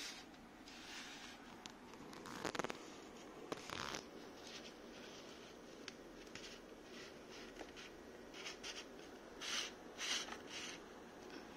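Faint handling noise from hands working at the base of a Formlabs Form 3 resin printer to level it: soft rubbing and scraping, with a couple of light knocks a few seconds in and a cluster of short scrapes near the end.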